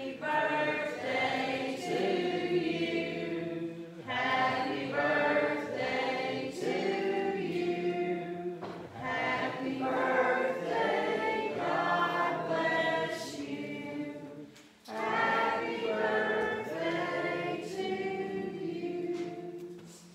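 A group of voices singing a hymn together, in long held phrases with short breaks between them.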